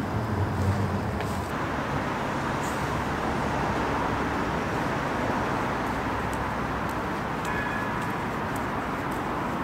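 Steady traffic noise from a busy road, with a lower engine rumble that fades out in the first second and a half.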